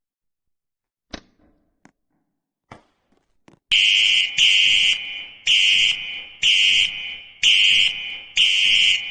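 Electronic alarm horn sounding in short, loud, flat-pitched blasts about once a second, starting about four seconds in; each blast trails off briefly. A few faint knocks come before it.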